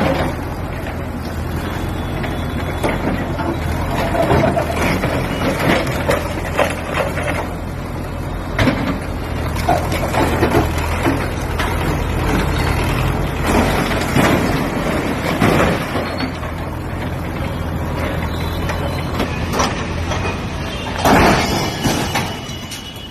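Bulldozer's diesel engine running steadily, with repeated knocks and scrapes and a louder burst about 21 seconds in.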